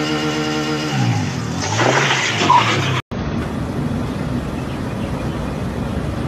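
A motorcycle engine held at high revs, dropping in pitch about a second in and revving up again, with a rough noisy burst just before an abrupt cut. After the cut there is steady road and traffic noise from a vehicle driving behind a truck.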